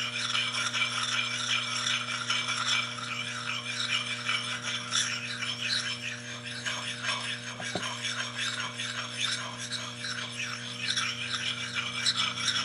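Oiled soft sharpening stone rubbing on the steel edge of an axe bit in repeated short strokes, a steady scratchy rasping as the edge is honed.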